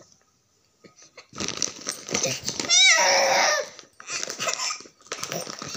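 Eleven-month-old baby girl squealing and laughing in short choppy bursts, with a high wavering squeal about three seconds in.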